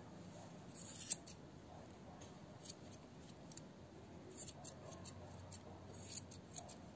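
Grooming scissors snipping the fur around a dog's paw: a few faint, scattered snips.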